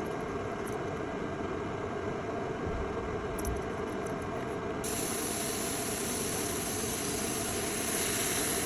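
Hot-air rework station blowing steadily while heating the solder joints of a broken laptop DC power jack to remove it. About five seconds in, its hiss grows brighter and a little louder.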